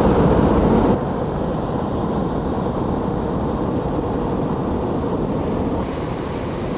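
Hot-air balloon's twin propane burners firing: a loud, steady rushing noise that is strongest for the first second and then holds slightly lower.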